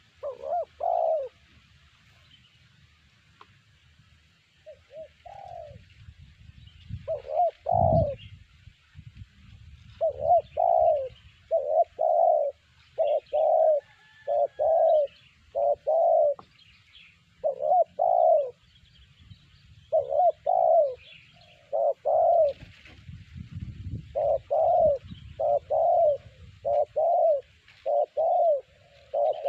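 Spotted dove (terkukur) cooing: short coo notes in repeated phrases, sparse at first, then coming steadily and close together from about a third of the way in. Faint chirps of other small birds sound above it.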